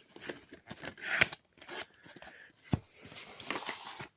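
DVD box set packaging being handled and opened: scattered scrapes, light clicks and rubbing, with a sharper knock about two and three-quarter seconds in and a brief rustle near the end.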